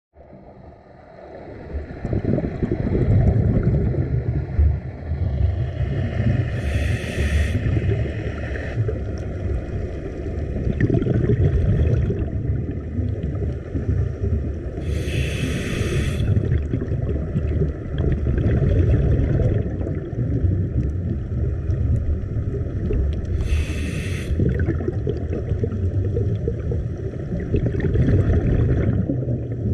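Underwater sound of a scuba diver breathing through a regulator, heard through the camera housing: a steady low bubbling rumble, with a hissing breath drawn through the regulator about every eight seconds.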